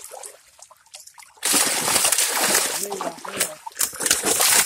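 Fish thrashing and splashing in shallow water packed inside a hauled-in net. The splashing starts loud about a second and a half in and keeps going, after a quieter start.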